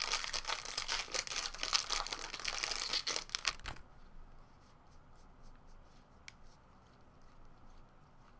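A foil trading-card pack wrapper being torn open and crinkled for about three and a half seconds, stopping abruptly, followed by faint scattered clicks of cards being handled.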